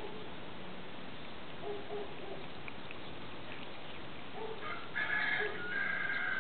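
A rooster crows in two parts near the end, with shorter hen clucks earlier. Faint, regular ticks of a cat lapping water run underneath.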